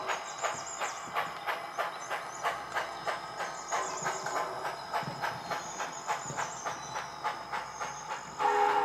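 S-scale model steam locomotive's sound system chuffing in an even beat as it pulls freight cars along the layout. Near the end its steam whistle starts to blow, a loud steady chord.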